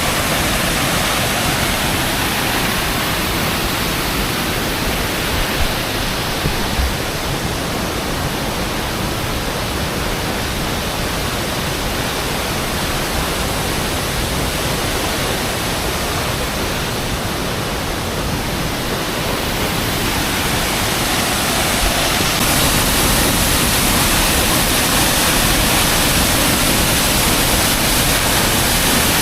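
Coban Lanang waterfall: water falling in a steady, loud rush, growing a little louder about three quarters of the way through.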